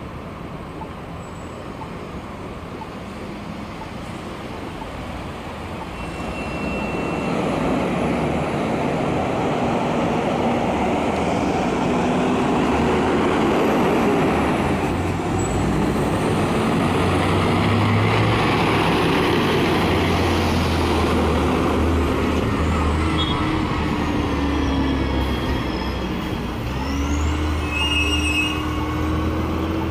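Street traffic: cars driving past close by, engines and tyres making a continuous rush that grows louder about seven seconds in. Near the end an engine's pitch rises as a vehicle accelerates away.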